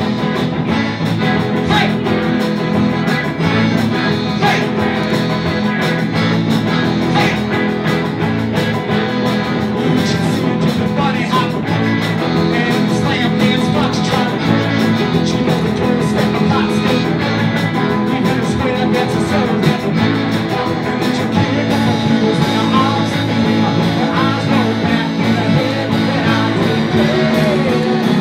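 Live polka band playing, with accordion, guitar and saxophone, and a singer.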